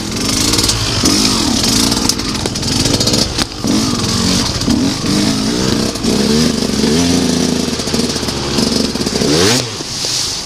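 Enduro motorcycle engine revving up and down over and over as it is ridden at low speed, with a few sharp knocks and clatter from the bike.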